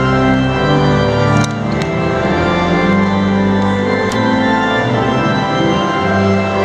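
Cathedral pipe organ playing slow, held chords over a deep sustained bass, the chords changing about once a second.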